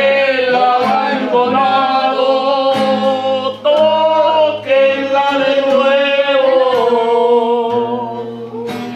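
A man singing long held notes with a wavering vibrato and no clear words, over acoustic guitar accompaniment with a few strums.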